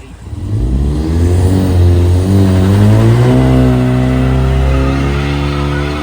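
Can-Am Outlander ATV engine revving hard. The revs climb over about two seconds, dip briefly, then rise again and hold high.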